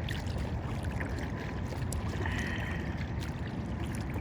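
Kayak moving on the water: faint splashes and drips from the paddle and water against the hull, over a steady low rumble.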